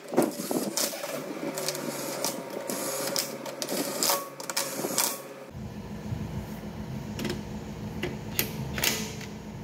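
Cordless impact wrench running on a car's wheel nuts: sharp mechanical clatter from its hammering, repeated in short bursts.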